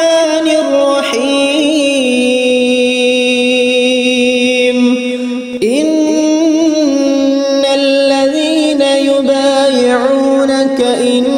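Quran recitation: a single unaccompanied voice chanting Arabic in long, ornamented held notes. It breaks briefly about five and a half seconds in, then starts a new phrase with a rising slide.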